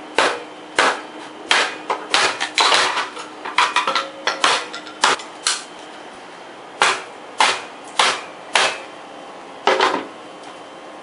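Repeated sharp hard-plastic knocks and cracks from a VW Mk4 centre armrest lid being forced against its replacement hinge. About twenty blows: a quick flurry over the first five seconds, a short pause, then five more spaced about half a second to a second apart.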